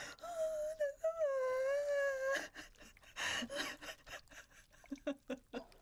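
A woman's frightened whimpering: a short high whine, then a longer drawn-out wail of about a second, then a breathy gasp, with a few faint clicks near the end.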